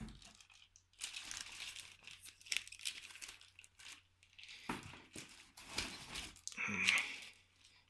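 Packaging crinkling and rustling in irregular bursts as a small loudspeaker is handled and unwrapped.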